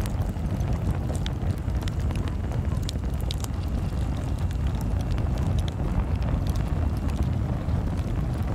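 Lump charcoal sliding from a paper bag into a smoker's lit firebox, with scattered light clicks and crackles from the lumps and burning coals. Underneath is a steady low rumble.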